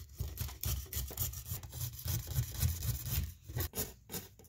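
A knife scraping and cutting along the edge of a fiberglass-and-resin-coated wooden paddle blade, trimming off the stiff overhanging cloth: quick, irregular rasping strokes that thin out after about three seconds.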